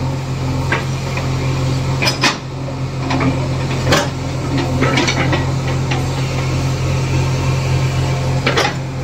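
JCB backhoe loader's diesel engine running steadily while its steel digging bucket scrapes through soil and rubble. Scattered clanks and knocks come from the bucket striking stones, the loudest about four seconds in.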